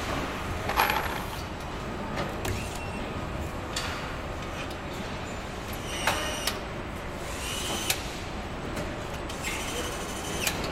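Car assembly-line noise: a steady hum with scattered metallic clanks and clicks and short hisses of compressed air from pneumatic tools.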